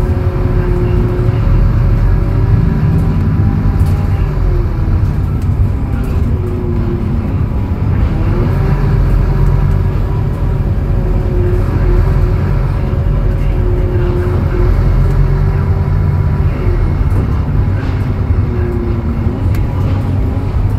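Scania K280UB city bus heard from inside while under way: its Scania DC09 five-cylinder diesel runs steadily through the ZF Ecolife automatic. The engine's pitch rises and falls several times as the bus speeds up and slows.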